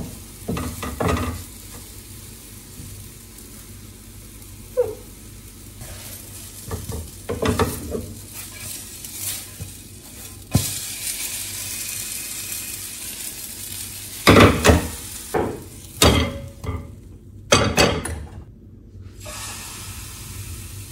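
Banana pancake batter sizzling in butter in a nonstick frying pan, with a steady hiss. A wooden spatula scrapes and knocks against the pan throughout, and there is a run of louder clatter from the pan and utensils about two-thirds of the way through.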